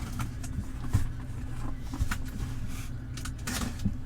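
Cardboard box and packing being handled, with a few scattered knocks and a short rustle about three and a half seconds in, over a steady low hum.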